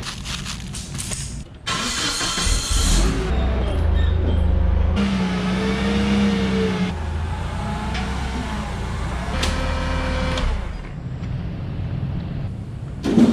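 Forklift engine running, its pitch rising and falling twice as it works. A sharp knock comes near the end.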